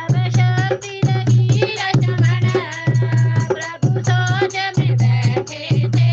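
Hindu devotional bhajan music: a heavy bass beat about once a second under quick drum strokes, with a bending melody line above.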